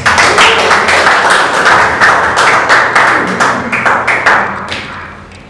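An audience applauding, many hands clapping together, dying away near the end.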